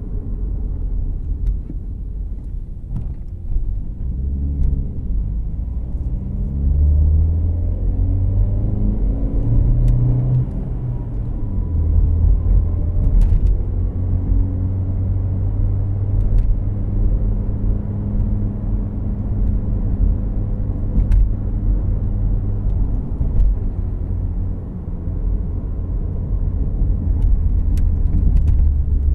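2014 Volkswagen Jetta Clásico heard from inside the cabin: engine and road noise, with the engine pitch climbing in steps over the first ten seconds or so as the car accelerates, then settling into a steady drone while cruising.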